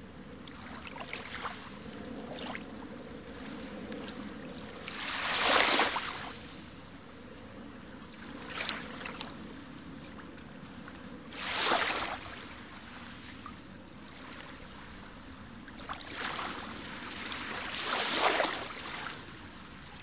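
Sea waves washing in: a steady wash of water noise that swells into a louder surge several times, the three biggest about six seconds apart.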